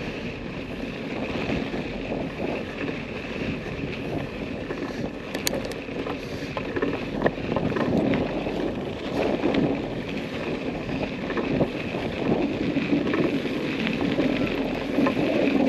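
An off-road vehicle running over a rough dirt trail, heard from on board: a steady, uneven running noise with occasional knocks and rattles, and wind buffeting the microphone.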